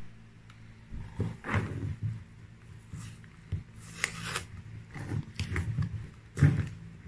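Handling noise from a cardboard pen-tablet box being opened: fingers rubbing and scraping on the paperboard as the lid is pried at its edge and slid open, in uneven strokes with a louder scrape about six seconds in. A steady low hum runs underneath.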